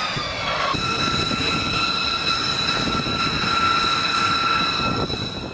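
Steady high-pitched aircraft turbine whine with overtones, over a low rumble.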